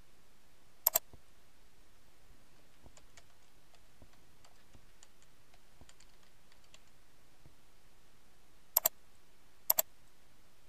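Computer mouse clicks, each a quick double snap of press and release: one about a second in and two close together near the end. In between come faint, scattered keyboard key taps as a web address is typed.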